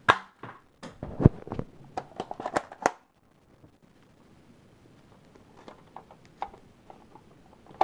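Sharp plastic clicks and clatter as a small modified Nerf blaster is handled and loaded with foam darts: a burst of clicks through the first three seconds, then a few faint ones near the end.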